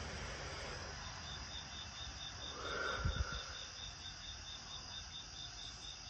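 A cricket chirping steadily at about five pulses a second, starting about a second in, over a low background hum. A brief low thump comes about three seconds in.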